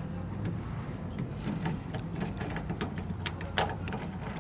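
Light clicks and taps of hand tools and plastic tailgate trim being worked loose, scattered and coming more often from about a second and a half in, over a low steady hum.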